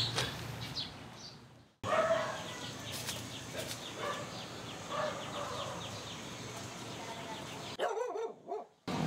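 A dog barking a few times, over faint chirping.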